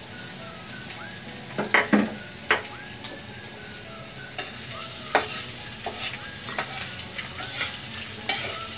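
Chopped garlic and onion sizzling in hot oil in a steel wok, with a metal spatula scraping and knocking against the wok as they are stirred. The loudest knocks come in a quick cluster about two seconds in, and single ones follow every second or so.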